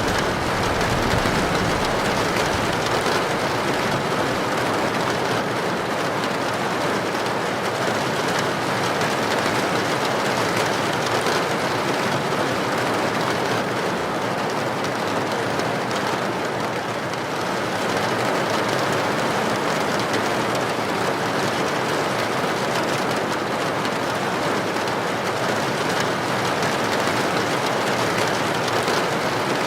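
Heavy rain falling steadily on a tin roof.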